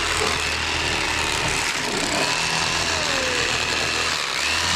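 Electric fillet knife running steadily, its motor buzzing with a low hum as the blades saw into a crappie.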